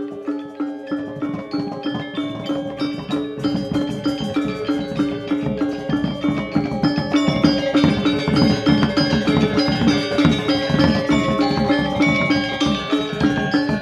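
Balinese gamelan playing dance accompaniment: bronze metallophones struck in quick patterns over a steadily repeated note, with drums coming in about a second in and the playing growing denser and louder.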